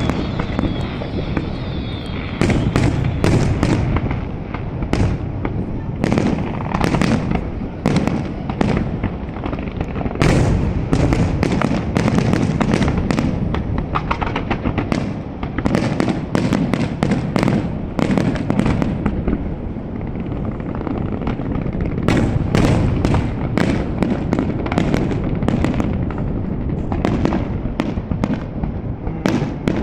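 Fireworks display: a dense, unbroken run of bursts and crackles, many reports a second over a constant low rumble of booms.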